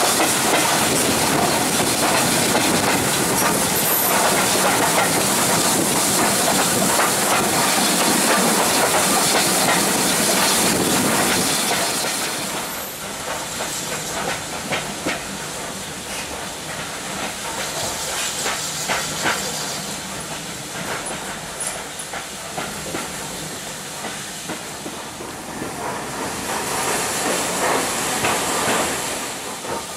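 Steam train heard from inside a carriage: a loud, steady rush of running wheels and steam hiss. After about twelve seconds it drops to quieter running with scattered clicks and knocks from the wheels, and swells again near the end.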